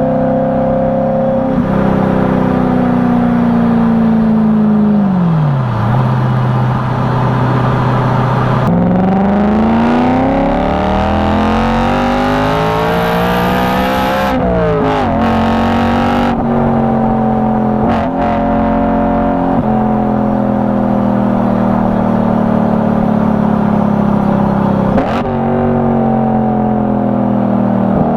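BMW E92 M3's 4.0-litre V8 running under way. The revs fall and settle low, then climb steadily, with quick jumps in pitch at gear changes around halfway. It then holds at moderate revs, with another shift near the end.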